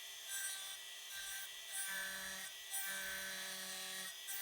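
Small high-speed electric rotary tool running steadily with a high whine, a lower note coming in twice as it works on the metal of the old revolver.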